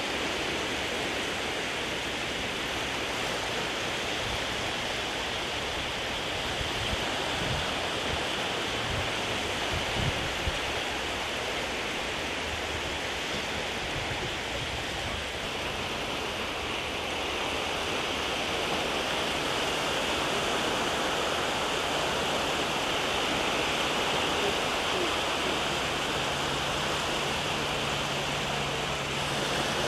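Steady hiss and wash of very shallow sea water running over sand at the water's edge, with a couple of brief low thumps about a third of the way in.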